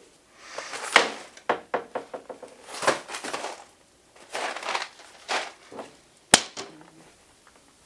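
Kitchen handling noises: several short rustling, crinkling bursts and a single sharp knock a little after six seconds in.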